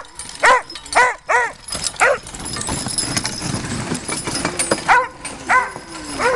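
A dog barking in two runs: four quick barks in the first two seconds, then three more near the end.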